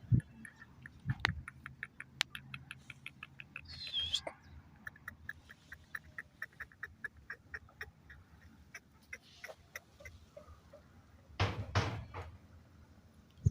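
Chukar partridge giving quiet, rapid clicking notes in runs of several a second. There is a short high chirp about four seconds in and a brief louder scuffling burst near the end.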